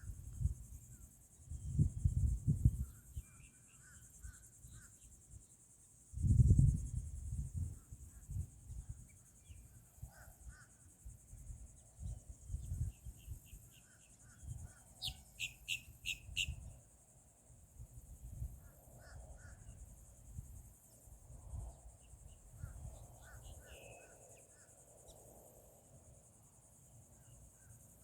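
Outdoor ambience: a steady high insect chorus of crickets runs under scattered short bird calls, with a harsh bird call of several quick notes a little over halfway through. Low rumbles come and go, loudest about two seconds and six seconds in.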